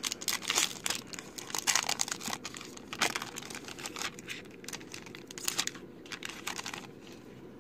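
Foil wrapper of a 2018 Topps Gallery baseball card pack being torn open and crinkled by hand, a run of quick crackling rustles that dies away near the end.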